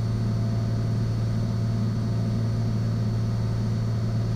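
Cessna 182 Skylane's piston engine and propeller droning steadily in cruise flight, a constant low hum with no change in pitch.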